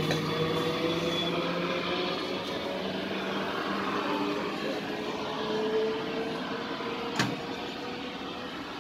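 Electric multiple-unit (EMU) train approaching slowly, its traction motors giving a steady hum with several held tones that drift slowly in pitch. A single sharp click sounds about seven seconds in.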